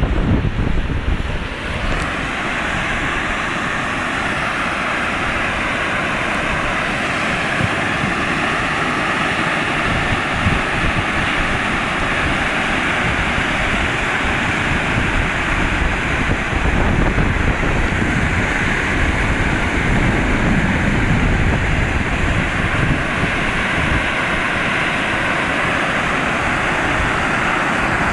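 Crude oil spraying under pressure from an illegal tap in an oil pipeline, a steady, loud rushing hiss, with wind buffeting the microphone.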